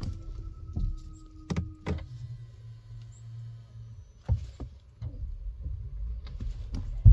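Low rumble from a Tesla with intermittent sharp thumps, two close together about a second and a half in and another past four seconds: the thumping sound the owner is documenting. A faint steady tone runs under the first two seconds, then a low hum.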